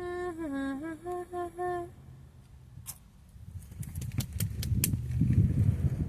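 A woman humming a short tune of a few notes with her mouth closed: one note that dips and rises again, then three short notes. After it, clicks and rustling handling noise that get louder toward the end.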